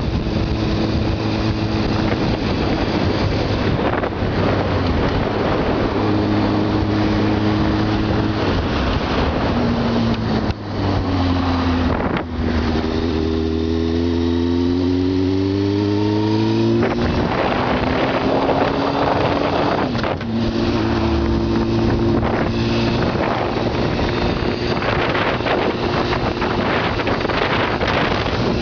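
Honda CBR600F4i's inline-four engine running under way, with wind rushing over the microphone. The engine note steps with brief breaks as the gears are changed, and about halfway through it rises steadily as the bike accelerates.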